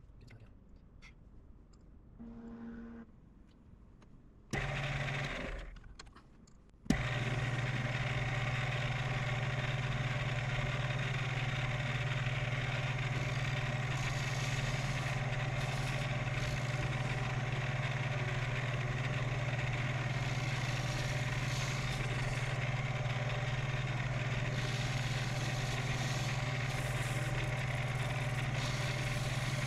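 1998 Shoptask XMTC Gold lathe-mill combo running, its motor and spindle turning the 3-jaw chuck with a steady low hum. It starts abruptly with a click about seven seconds in, after a quieter stretch.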